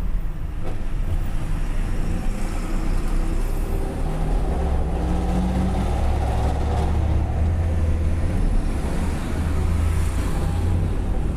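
Vehicle engine running through a straight-through exhaust, a loud, steady low exhaust note that grows heavier from about four seconds in.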